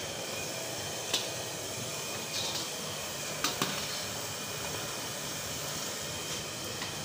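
Steady hissing noise, with a few light knocks from a plastic basket being handled, about a second in and twice around three and a half seconds in.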